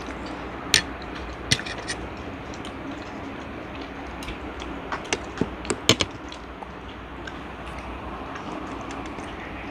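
Metal forks clicking against a shared plate of noodles and sausages: a few sharp clicks in the first two seconds, then a quick run of four or five around the middle, over a steady background hum.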